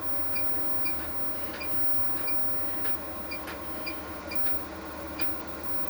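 Domestic washing machine control panel beeping as its buttons or programme dial are worked: about eight short, high beeps, each with a light click, at uneven intervals over a steady background hum.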